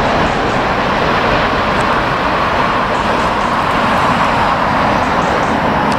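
Steady jet engine noise from an airliner touching down and rolling out along the runway.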